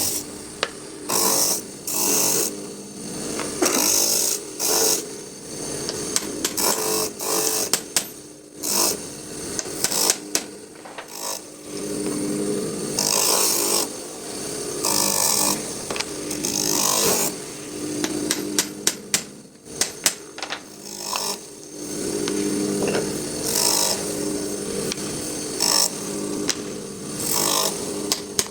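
A table grinder running with a steady hum while a wooden piece is sanded on it. The sanding comes as repeated bursts of rasping hiss of a second or so each, with scattered sharp clicks.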